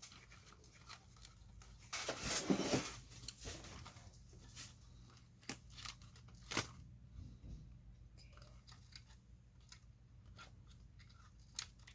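Fabric canopy and its Velcro tabs being handled while fitted onto a plastic RC truck body: scattered faint clicks and taps, with a louder rasping rustle about two seconds in.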